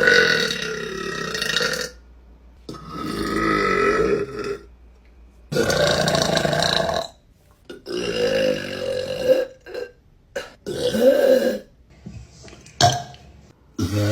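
A woman belching loudly over and over: four long, drawn-out burps of one to two seconds each, then a few shorter burps near the end.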